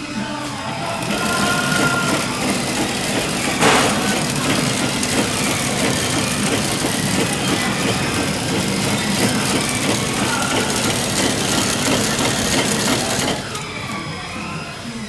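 Cereal bar production line running, its conveyor and flow-wrapping packing machine making a steady loud clatter and hum, with one sharp knock about four seconds in. Near the end the machine noise drops away.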